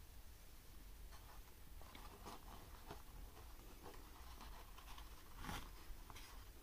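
Faint handling sounds: soft rustles and small crackles as a choux eclair is gripped and lifted out of its cardboard tray, the loudest about five and a half seconds in.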